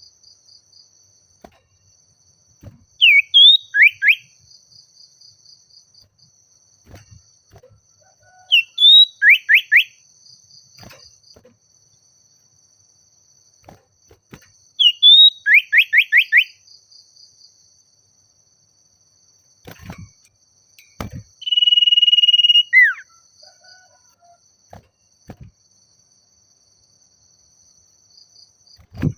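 Common iora (sirtu/cipoh) singing territorial calls, the challenge song used to draw a rival. It repeats a phrase about every six seconds: a quick rising note, then a rapid run of three to five falling whistles. Near the end comes one long steady whistle that drops away in a falling slur.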